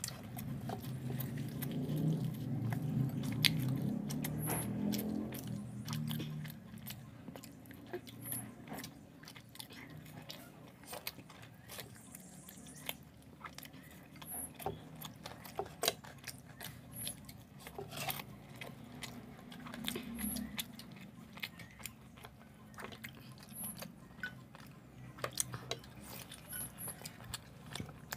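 Two people eating poori and chicken curry with their hands: scattered chewing and biting with short, wet clicks and smacks.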